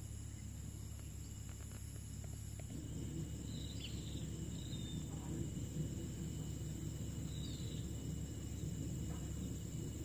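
Outdoor ambience: a steady low rumble with a faint, even insect hum above it, the rumble growing a little louder about three seconds in. A few faint, short high-pitched chirps come and go between the middle and near the end.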